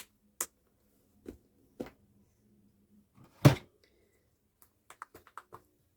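Scattered knocks and clicks of small objects being handled and set down on a work surface. The loudest is a single thud about halfway through, followed near the end by a quick run of light clicks.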